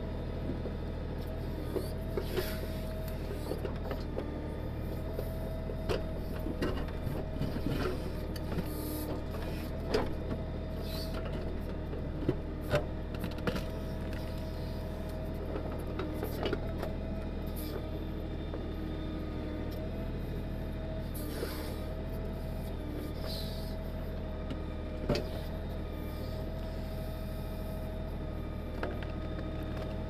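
Kioti DK6010 tractor's diesel engine running steadily while powering its KB2485 backhoe, with a hydraulic whine that comes and goes as the controls are worked. Scattered sharp clanks, several between about ten and seventeen seconds in, come from the steel bucket striking rocks and roots in the soil.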